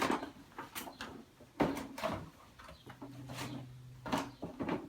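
Cardboard shoe boxes being handled: a series of knocks and rustles as the box and lid are moved and set down. A low hum runs briefly in the second half.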